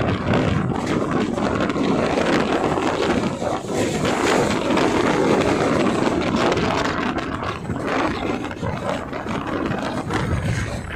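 Steady rushing noise of the Uttar Sampark Kranti Express passenger train running at speed, with the rumble of its coaches on the track and wind buffeting the microphone at the open coach door.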